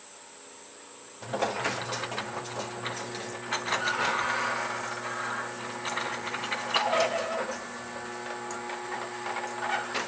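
Sectional garage door opening: a mechanical rumble and rattle with clicks starts about a second in and keeps going as the door rolls up.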